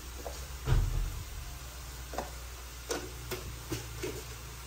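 Ground pork and carrot filling sizzling in a wok on a gas stove, with a dull thump about a second in and several sharp clicks and knocks after it.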